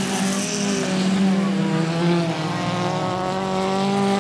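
Several small race cars' engines running hard over a dirt track, revving up and down, several pitches rising and falling at once.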